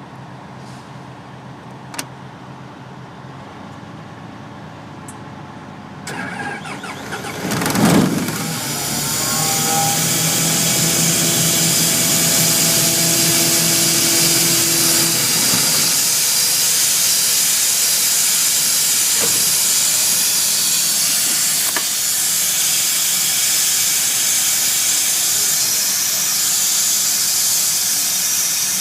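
CompAir air compressor running with a steady low hum, then, about six seconds in, a surge that peaks in a loud burst near eight seconds and gives way to a loud, steady rush of escaping compressed air.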